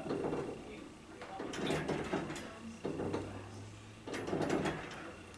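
Wooden porch swing creaking and clicking on its chains as it rocks, four short creaks about a second and a half apart.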